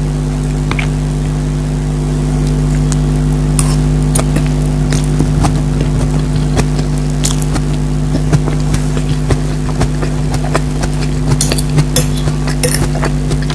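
Close-miked eating sounds: irregular wet clicks, smacks and crackles of chewing, over a loud steady low hum.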